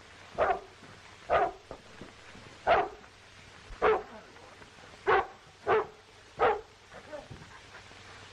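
A dog barking to draw attention, seven single sharp barks about a second apart, then a few fainter ones near the end, over the steady hiss of an old film soundtrack.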